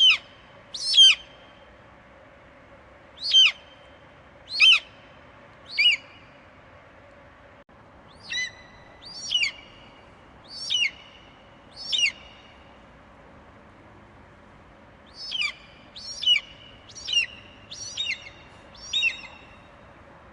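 Eagle calling: a string of short, high screeches, each sliding down in pitch, in loose groups of two to six with short pauses between.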